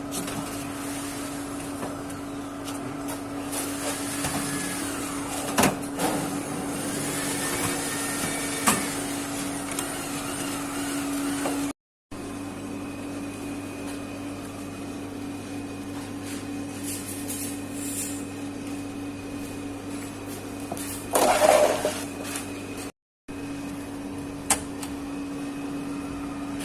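A machine running with a steady electric hum, with occasional knocks and a short clatter about two-thirds of the way in. The sound cuts out for a moment twice.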